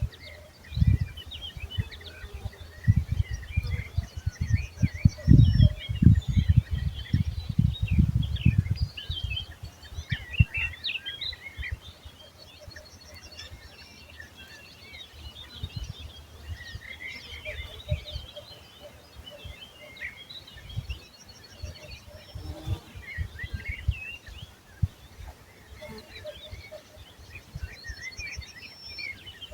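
Several small birds chirping and singing, with now and then a short rapid trill. Repeated low rumbling thumps on the microphone, densest and loudest in the first third, are the loudest sound.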